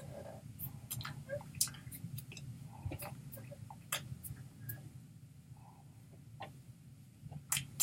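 Scattered small clicks and soft taps from a man signing, his hands striking, brushing and clasping together, over a low steady hum.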